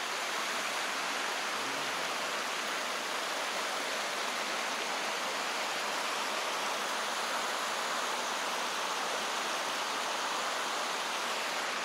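A stream running steadily.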